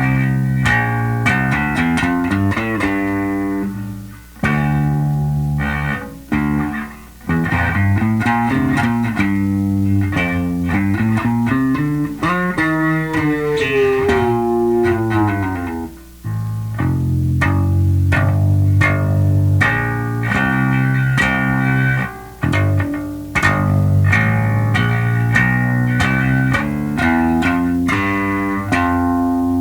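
Squier Mini P Bass with DiMarzio Relentless pickups, played through a Sound City Master Lead 50 amplifier head into a Schroeder 12PL cabinet: a string of picked bass riffs with a few brief gaps, and one note sliding down in pitch about halfway through.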